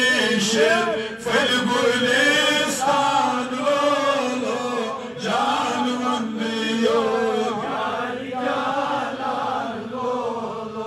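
Chanting of a Kashmiri naat, a devotional poem in praise of the Prophet, with a melody winding over a steady held tone.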